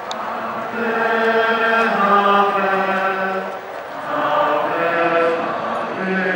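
A crowd of people singing a religious hymn together as they walk, in two phrases of long held notes with a short break between them.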